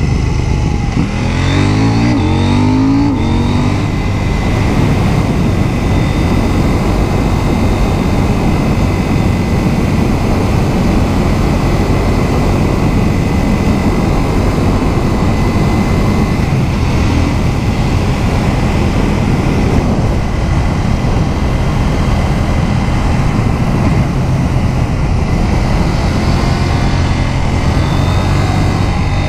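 KTM 790 Duke's 799 cc parallel-twin engine accelerating hard, its pitch climbing in the first few seconds, then running steadily at speed in third gear. Wind rush on the microphone mixes in with the engine.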